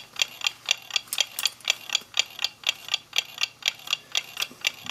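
Mechanical clock ticking steadily, with sharp quick ticks at about four a second.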